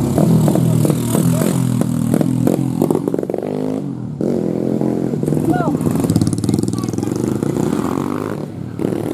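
Stock Yamaha Vega motorcycle engines running and revving, with voices over them. The sound cuts out briefly about four seconds in.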